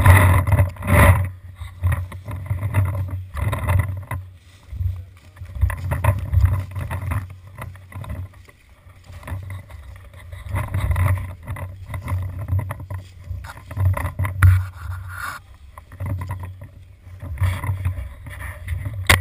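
Footsteps crunching and rustling through dry leaf litter, in irregular bursts every second or so, with low thumps and rubbing from the body-worn action camera.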